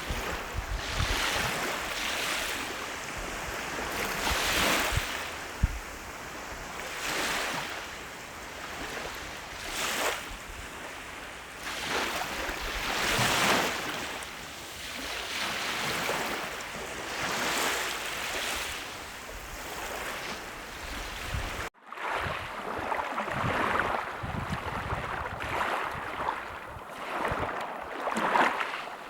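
Sea waves breaking and washing on the shore, surging and receding every two to three seconds. The sound drops out for an instant about three-quarters of the way through.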